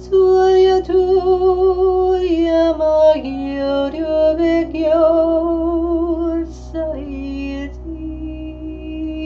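A woman's wordless sung toning: long held vowel notes that slide from pitch to pitch with a slight waver, over a steady low ambient drone. The voice stops near the end, leaving the drone and a steady high ringing tone.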